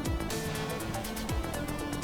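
Electronic background music: a melody of held notes over a kick-drum beat and quick hi-hat ticks.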